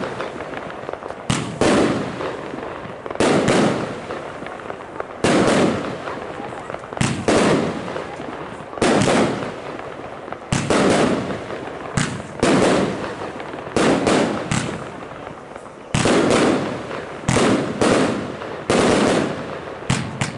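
Röder "Farbtastisch" compound firework cake firing shot after shot. A sharp bang comes every one to two seconds, now and then two in quick succession, and each fades out in a hissing tail as the shell bursts.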